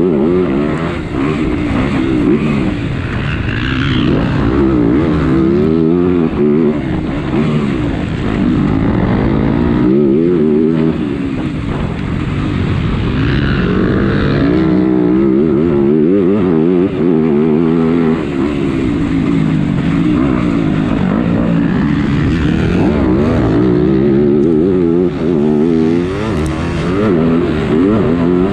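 Motocross bike engine under hard racing throttle, its pitch climbing and dropping again and again as the rider accelerates, shifts and backs off for corners.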